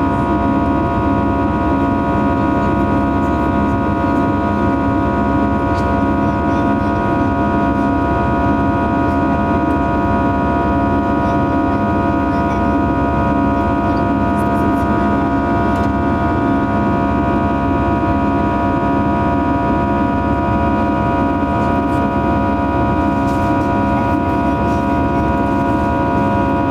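Airbus A320 cabin during the climb after takeoff, over the wing: the CFM56 turbofan engines and the airflow make a steady, loud drone with a hum of several steady tones. It does not change.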